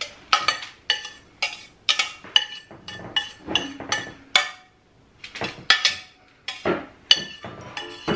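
A utensil scraping and knocking inside a stainless-steel saucepan, a string of sharp metallic clinks about two a second with a short pause near the middle, as the last of the filling is scraped out.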